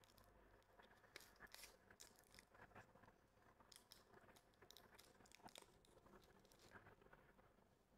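Faint crinkling and tearing of plastic packaging, with scattered small clicks, as supplies are unwrapped and handled on a treatment cart.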